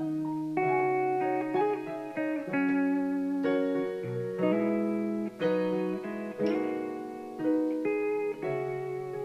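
Instrumental passage on electric guitar with digital keyboard: a slow melodic line of held notes and chords, without vocals.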